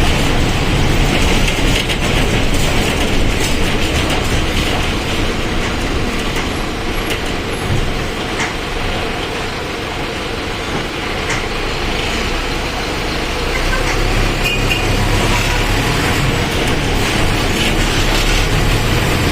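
Mercedes-Benz OF1722M bus's diesel engine running while the bus is driven, with rattles and clicks over a steady rumble. The engine eases off around ten seconds in and pulls harder again from about fourteen seconds.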